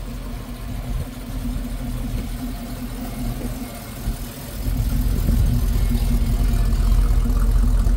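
Plymouth Duster engine running at low speed as the car rolls slowly past, its steady engine note growing louder about halfway through as the car draws alongside.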